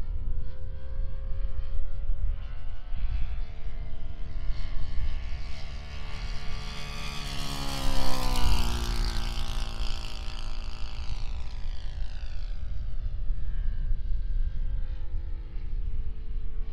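Giant-scale radio-controlled P-51 Mustang model, its GAUI F50 powerplant turning a Mejzlik 21x10 propeller, making a low pass. The propeller drone builds as it approaches, is loudest about eight seconds in, then drops in pitch and fades as the plane passes and climbs away.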